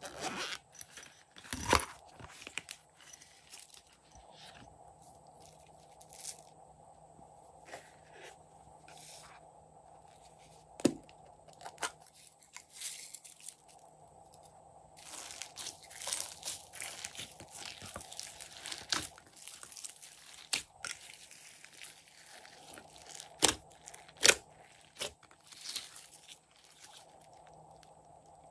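Close-miked handling sounds of slime making: sharp pops from a silicone pop-it toy at first, then a dense crackle of sequins and glitter poured into a tray of slime and mixed in. Single sharp clicks stand out now and then throughout.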